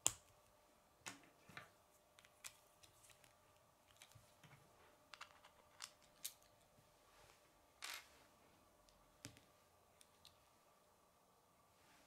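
Plastic K'nex pieces clicking and snapping as a rod and connectors are fitted together by hand, in scattered sharp clicks at irregular intervals, the loudest right at the start.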